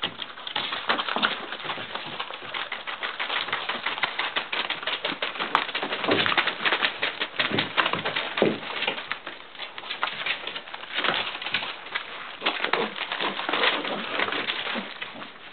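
Several puppies scrambling over newspaper spread on the floor: a dense, continuous rustling and crinkling of paper with claws skittering across it.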